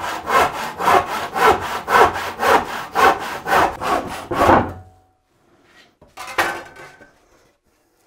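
Hand saw crosscutting a rough-sawn 40 mm wooden plank in quick, even strokes, about four a second, until the offcut comes free about five seconds in. A short knock follows about a second later.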